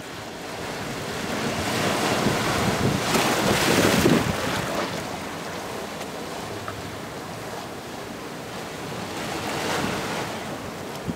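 Ocean waves breaking and washing over rocks through a narrow gap between boulders. The surf swells to its loudest about three to four seconds in, eases off, then rises again with a smaller wave near the end.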